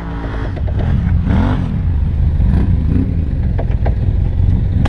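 Arctic Cat Wildcat Trail side-by-side engine running while parked, its pitch swelling up and falling back several times, with a few short clicks near the end.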